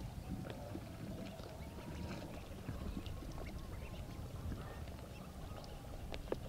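Ducks calling softly, with scattered light ticks over a steady low rumble.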